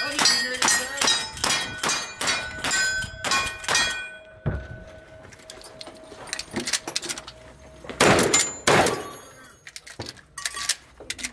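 A fast string of about ten gunshots, each followed by the ring of a struck steel target, one ring hanging on after the string ends. Then two louder shotgun blasts about a second apart, followed by a few light clacks.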